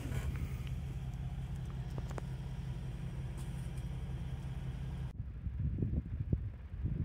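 A steady low mechanical hum for about five seconds, with a few faint clicks. Then the sound cuts off abruptly and gusts of wind buffet the microphone.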